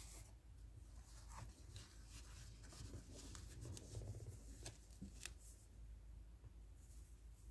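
Faint handling noise over a steady low hum: light rustling of a paper scratch ticket under cotton-gloved hands, with a few soft clicks as a large metal scratching coin is picked up.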